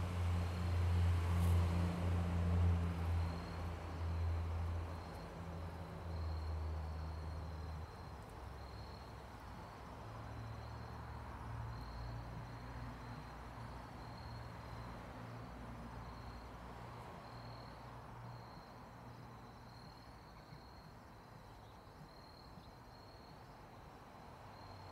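Insects chirping in a steady pulsing rhythm outdoors, over a low mechanical hum that is loudest for the first several seconds, drops off, returns more faintly, then fades away.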